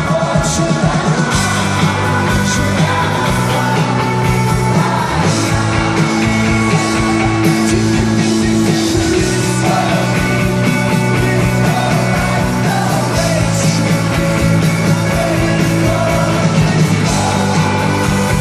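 Indie rock band playing live, with steady drums under sustained chords and a singer.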